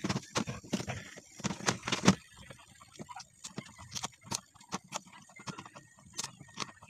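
Irregular sharp knocks and clicks, louder and closer together in the first two seconds, then fainter and sparser.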